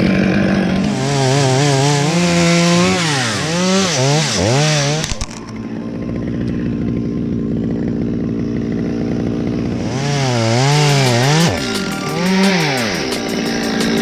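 Two-stroke chainsaw running, its engine pitch repeatedly rising and falling as the throttle is worked, with a steadier stretch in the middle.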